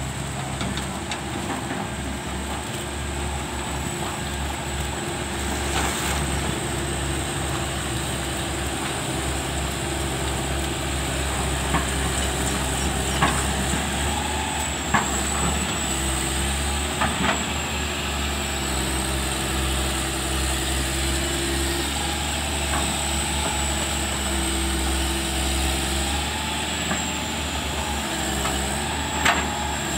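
Hitachi tracked excavator's diesel engine running steadily as the machine digs through mud, with a high thin whine that wavers up and down in pitch. A few sharp knocks stand out, the loudest about halfway through and near the end.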